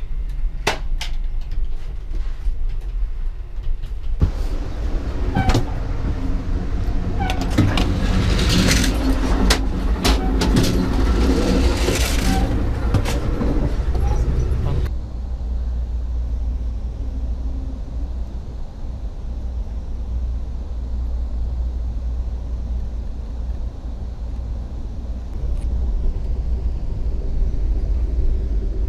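Passenger train running: a steady low rumble with sharp clicks and rattles from the wheels and car. Between about 4 and 15 seconds in, a busier patch of higher, shifting sounds rides over it. The sound then changes abruptly to a smoother, duller rumble.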